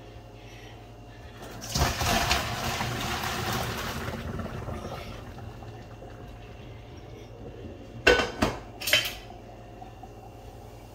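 Boiling water and chestnuts poured from a pot into a stainless-steel colander in a metal sink: a rush of pouring water about two seconds in that tapers off, then three quick clanks of the pot near the end.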